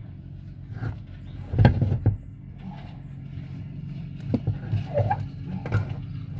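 Scattered knocks and clunks of a truck's driver's seat being shifted while its mounting bolt is lined up with the hole, the loudest about one and a half seconds in, over a steady low hum.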